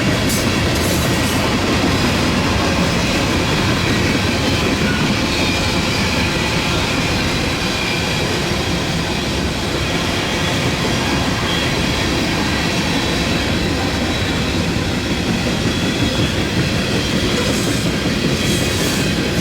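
Freight train rolling past at close range, a loud steady rumble of steel wheels on the rails with clicking over the rail joints and a faint high wheel squeal.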